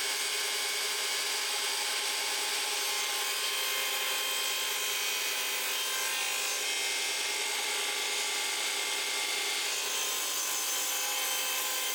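Table saw running steadily at speed, its blade cutting a wooden test piece carried on a crosscut sled.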